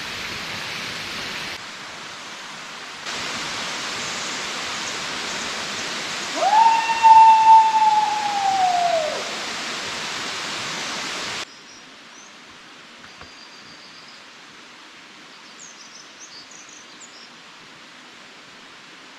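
Mountain stream water rushing over boulders, a steady noisy hiss whose loudness jumps at edits and drops much lower about two-thirds of the way through. In the middle, a loud clear whistle-like tone rises, holds and falls away over about two and a half seconds. Near the end, a few short high bird chirps sound over the quieter water.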